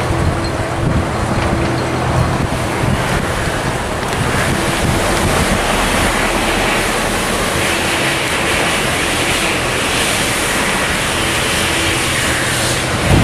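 Wind buffeting the microphone, with the faint steady hum of a miniature railway's small diesel locomotive running underneath.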